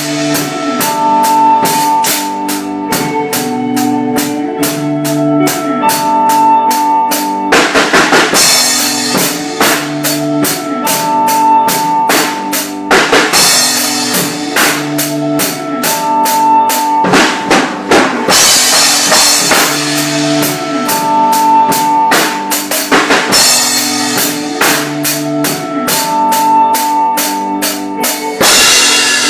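Slow instrumental ambient rock: a looped electric guitar figure with delay, notes repeating in a phrase about every five seconds, over a steady drum kit beat with a cymbal wash about every five seconds.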